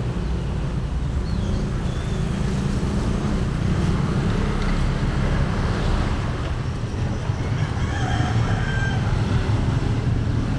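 Old ZIL truck's engine idling, a steady low rumble.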